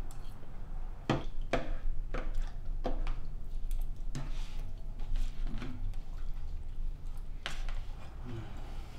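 A spoon clicking and scraping against a bowl as food is eaten, with small wet squishing sounds: a handful of sharp clicks spaced irregularly, over a steady low hum.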